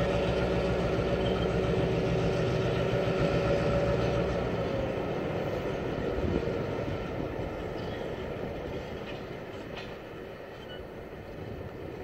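EMD SD9 diesel locomotives, with their 16-cylinder 567 two-stroke engines, running as they pull a string of tank cars away. The deep engine sound fades out about halfway through as the train draws off, leaving quieter rolling noise from the cars.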